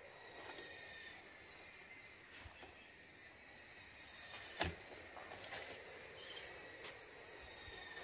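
Faint woodland ambience with a steady, thin, high insect buzz, soft scattered footstep and rustle sounds, and one sharp knock about halfway through.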